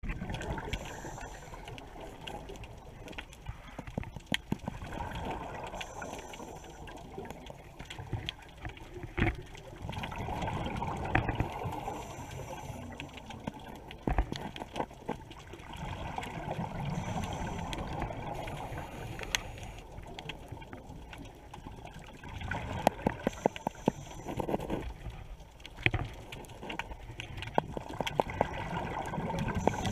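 Scuba diver breathing through a regulator, heard underwater: a faint hiss on each inhale and a bubbling rush on each exhale, repeating about every five to six seconds. Many sharp clicks and crackles are scattered through it.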